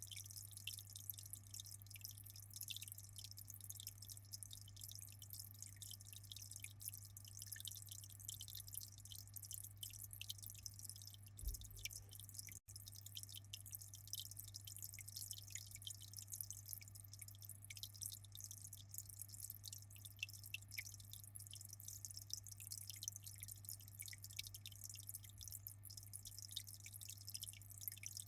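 Aquarium water dripping and splashing in a quick, fine, continuous patter over a steady low hum.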